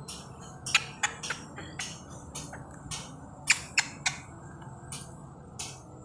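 Rose-ringed parakeet making short, sharp, high chirps and clicks, irregular at about two to three a second, thinning out toward the end.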